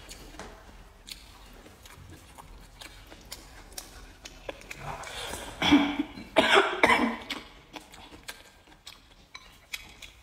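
Close-up eating sounds: faint chewing and chopstick clicks, then about five seconds in a few loud, noisy slurps and sucks as rice and stir-fried pork are shoveled from the bowl's rim into the mouth with chopsticks.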